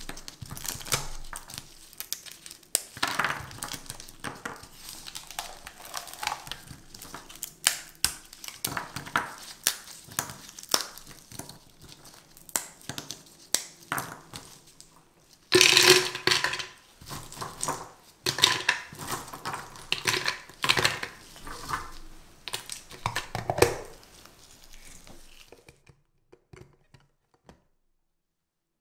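Hardened caramel cracking and snapping as caramelized hazelnut brittle is broken apart by hand, with the coated nuts clicking against each other. It is a rapid run of sharp snaps, loudest about halfway through, and it stops a few seconds before the end.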